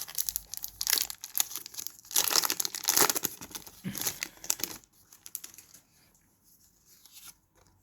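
Foil wrapper of a Pokémon Crown Zenith booster pack being torn open and crinkled by hand. The crackling is dense for about five seconds, then dies down to faint rustles.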